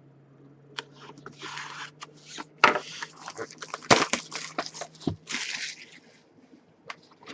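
A box of trading cards being handled and opened: scattered clicks and knocks of cardboard, with two short stretches of tearing and crinkling wrapper.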